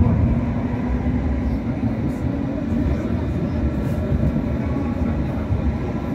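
A first-generation Hong Kong Light Rail car running along the line: a steady low rumble of wheels on the rails, with a faint steady motor tone.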